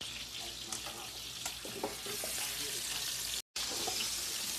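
Chicken thighs frying in hot oil in a stainless steel skillet: a steady sizzling hiss with scattered crackles, cut off briefly about three and a half seconds in.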